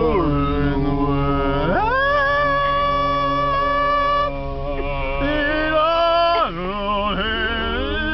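A voice singing long, held notes that slide up and down in pitch between them, over a steady low hum.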